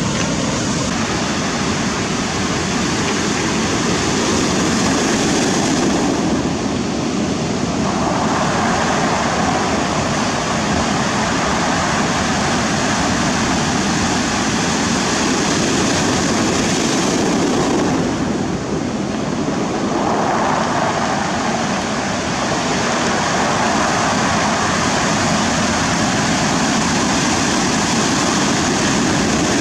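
Ocean surf breaking and washing up the shore in a steady rush of churning water, swelling louder about eight seconds in and again about twenty seconds in.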